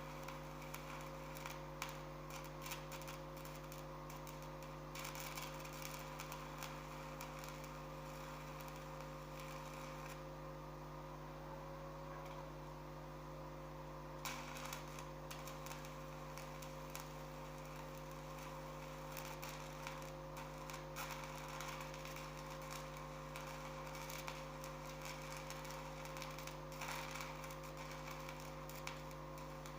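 Stick (electrode) arc welding: a continuous fast crackling and sputtering of the arc over a steady electrical hum, the crackle easing for a few seconds around the middle and then starting again.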